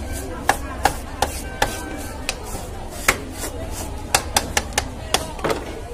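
A toothed metal fish scaler rakes the scales off a large bighead carp in quick strokes. The strokes come as a dozen or so sharp, irregular scraping clicks, bunched closer together near the end.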